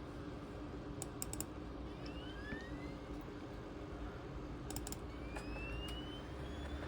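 Scattered clicks of a ThinkPad T23 laptop's keys and buttons, a few at a time about a second in and again near five seconds, over a steady low hum, with two faint rising whines.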